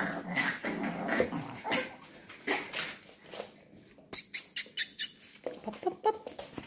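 Young puppies play-fighting and making soft dog noises. About four seconds in comes a quick run of short, sharp, high-pitched sounds, with a few more near the end.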